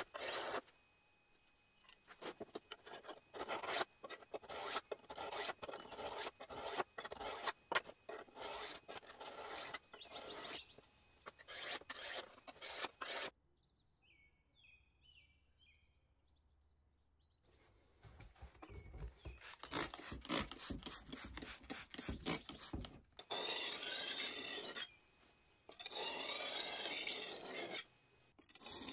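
A small hand-held sharpening stone rubbed in quick, repeated scraping strokes along a large kitchen-knife blade, honing stone over blade; the strokes stop about 13 seconds in. Near the end come a few longer, louder scraping sounds.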